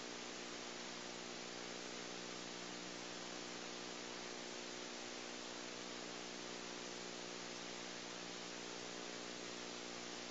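Steady hiss with a low electrical hum underneath, unchanging throughout: background noise of the recording. No kicks or pad strikes are heard.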